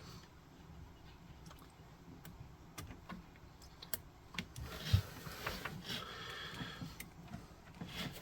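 Faint small clicks and soft rustling of hands handling wires and small connector parts, with a patch of rustling from about halfway through.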